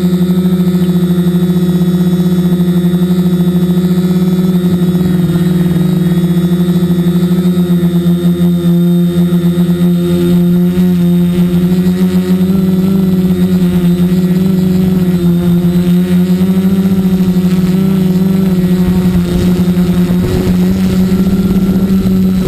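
Multirotor drone's electric motors and propellers buzzing loudly at a steady pitch, heard from a camera mounted on the drone. The pitch wavers slightly as the drone adjusts its position.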